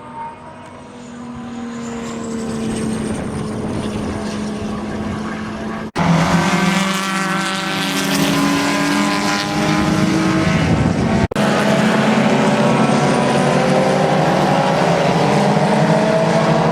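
Porsche 934 Turbo's turbocharged flat-six race engine running at speed, with a high turbo whistle rising in pitch as the car draws closer and gets louder. The sound breaks off twice, about six and eleven seconds in, and comes back louder, the engine note rising and falling.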